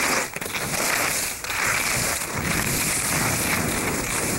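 Skis hissing and scraping over snow during a fast downhill run, mixed with wind rushing across the microphone; a steady rush with two brief dips early on.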